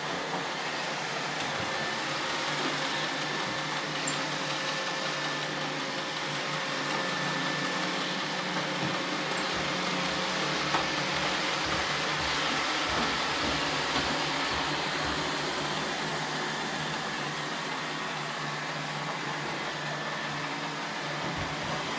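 Roomba robot vacuums running, a steady whir of suction motors and brushes with a few light clicks.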